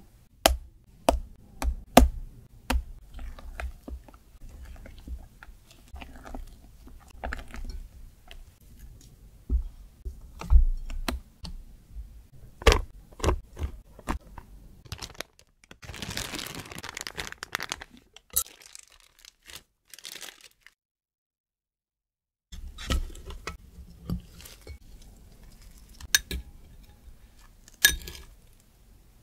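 Kitchen handling sounds: a silicone spatula scraping and tapping in a glass bowl of mascarpone cream, with many sharp clicks. Next, about two seconds of soft rustling as the cream goes into a plastic piping bag. After a short silence, a fork clicks against a ceramic dish while a ladyfinger is dipped in coffee syrup.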